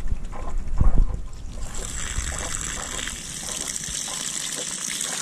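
A few bumps as the lever of a hose-splitter ball valve on a gravity-fed spring-water holding drum is handled. Then, about a second and a half in, a steady jet of water starts gushing from the spout and splattering onto dry leaves.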